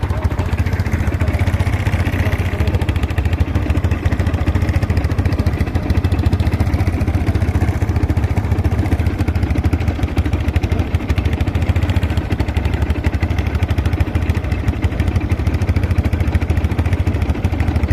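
Linhai 300cc ATV's single-cylinder four-stroke engine running steadily, an even rapid firing beat with no clear rise or fall in revs.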